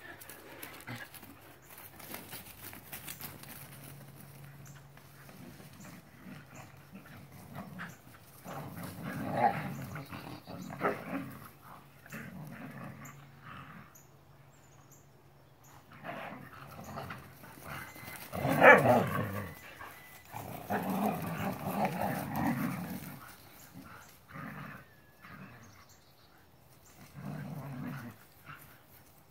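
Sighthound dogs play-fighting and growling in several spells, the loudest burst about two-thirds of the way through, with quieter gaps between.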